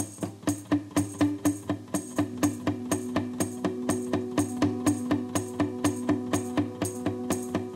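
Background music with a steady percussion beat, about four hits a second, over held notes.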